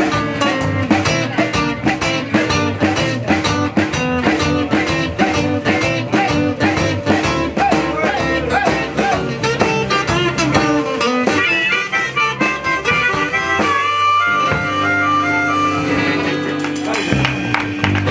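Live band of acoustic guitars, electric guitar and drum kit playing a song. About two-thirds through the drums stop and the song closes on a long held final chord.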